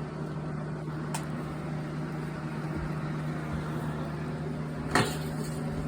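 Box fan running steadily: an even rush of air over a constant low motor hum. A short noise breaks in near the end.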